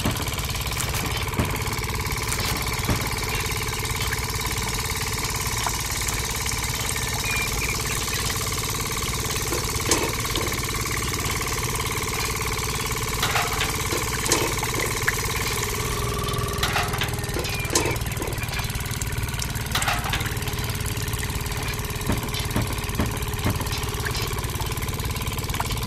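A small motor running steadily, driving a miniature model juicer machine. It makes a low, even hum with a faint whine that shifts slightly about sixteen seconds in, and scattered small clicks.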